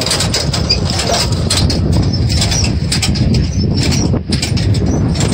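Tractor engine running steadily as it pulls a cabbage transplanter through the field, a loud low rumble with no break.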